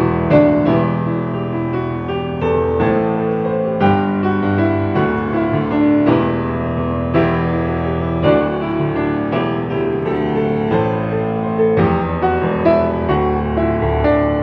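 Yamaha grand piano played with both hands: a flowing piece of chords under a melody, with a fresh chord struck every half second to a second and notes ringing on between them.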